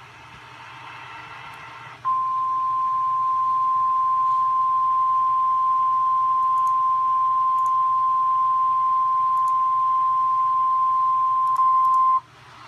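Emergency alert attention tone: a single steady beep near 1 kHz held for about ten seconds, the NOAA Weather Radio warning alarm tone that comes before a warning message. It starts sharply after about two seconds of faint radio hiss and cuts off sharply near the end.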